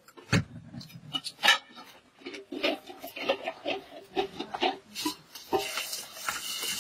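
Metal cooking pot and lid handled on a hard floor: scattered knocks, clinks and scrapes, the loudest about one and a half seconds in. Near the end water begins pouring from a plastic jug into the pot.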